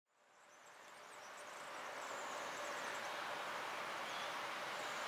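Distant DB Cargo class 189 electric locomotive hauling car-transporter wagons, approaching: a steady rumble that fades in from silence over about two seconds, with faint high chirping above it.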